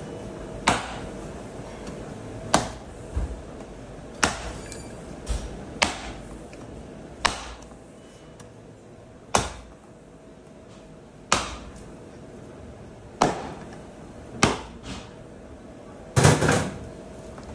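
Heavy meat cleaver chopping into a sheep's head on a wooden butcher's block: sharp single chops about every one to two seconds, with a quick flurry of blows near the end.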